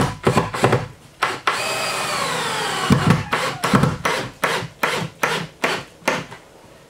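Cordless drill driving 4-inch drywall screws through rough-sawn wooden strapping. A few short bursts, then a steady run of about a second and a half whose pitch falls as the screw bites into the wood, then a string of short bursts, about three a second, as it is driven home.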